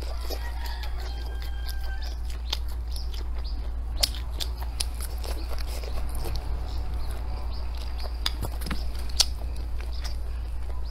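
Close-miked eating: a person chewing food, with scattered wet mouth clicks and smacks. A steady low hum runs underneath.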